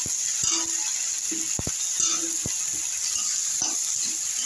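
Food frying in oil in a kadai with a steady sizzle, while a metal spatula knocks and scrapes against the pan several times as it is stirred.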